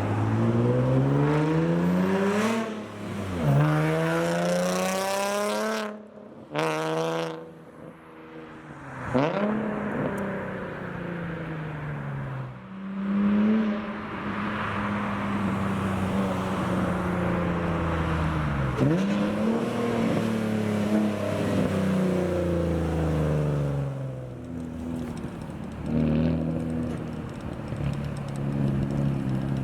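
Car engine accelerating hard, its pitch climbing and dropping sharply several times as it shifts through the gears and lets off, with a couple of brief cut-outs partway through.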